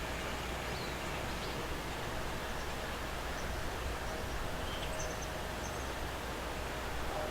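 Steady outdoor background noise with a faint steady hum, and a few faint high bird chirps about a second in and again around five seconds in.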